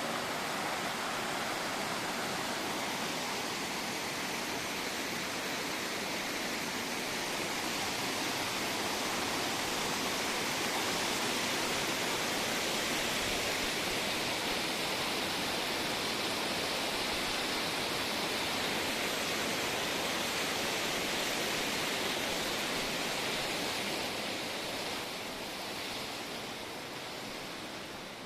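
Rushing water of a mountain stream, a steady even roar that fades out near the end.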